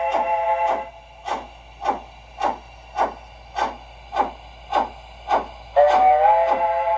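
Sound system of an LGB HSB Mallet G-scale steam locomotive: steady exhaust chuffs, a bit under two a second, with a multi-tone steam whistle held at the start. The whistle cuts off about a second in and sounds again near the end, sliding up slightly in pitch as it opens.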